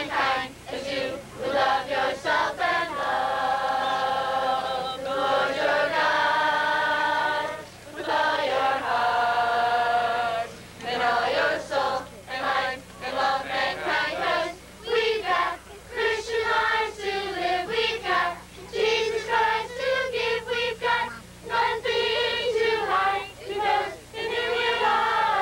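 A group of children and teenagers singing together, starting on long held notes, then faster, rhythmic lines.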